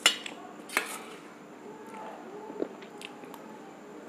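Crisp fried bhatura bread being torn apart by hand, giving two sharp crackles near the start and just under a second in, then a few fainter crackles and soft handling noises.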